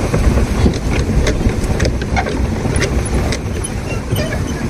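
Plastic pedal boat underway: a steady low rumble with water churning, and scattered short clicks and knocks from the hull and pedal mechanism.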